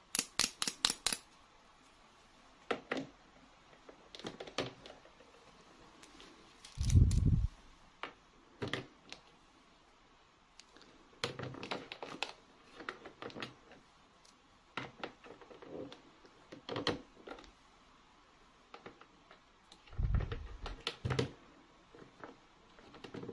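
Small plastic toy pieces and packaging being handled: irregular clicks and taps, with a quick run of clicks at the start and a dull thump about seven seconds in and again a few seconds before the end.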